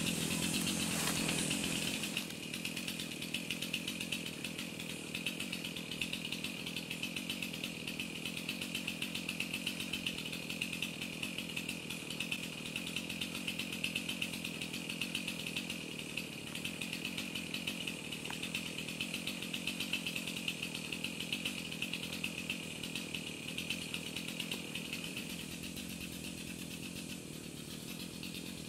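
Cicada chorus making a steady, high, finely pulsing buzz. There is a brief louder rustle of branches at the very start.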